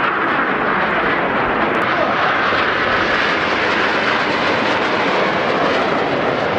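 Steady roar of several Aermacchi MB-339 PAN jet trainers flying past, each powered by a single turbojet.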